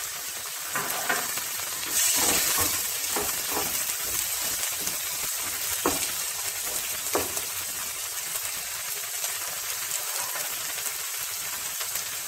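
Sliced onions, chopped tomatoes and ginger-garlic paste sizzling in butter and oil in a pan, stirred now and then with a wooden spatula. The sizzle swells about two seconds in, and there are a couple of light knocks later on.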